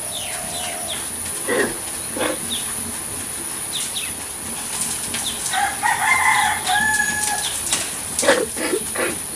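Domestic chickens calling, a rooster crowing and hens clucking, with held call notes about midway and a quick series of clucks near the end, among many short falling chirps of small birds.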